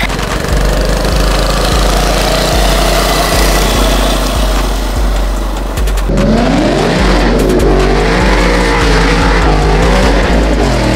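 Vehicle engine running loud, then revved up and down repeatedly through the second half, its pitch rising and falling.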